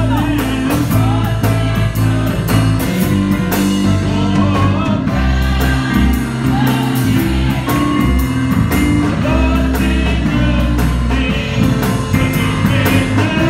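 Electric console organ playing sustained chords and held bass notes under a choir singing, with a steady beat.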